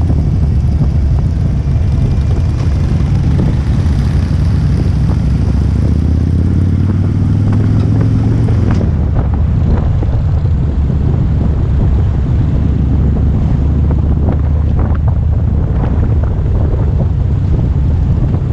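Harley-Davidson touring motorcycle's V-twin engine running while riding, heard from the rider's seat with steady wind noise on the microphone. The engine note rises as the bike accelerates from about four to eight seconds in, and the sound changes abruptly about nine seconds in.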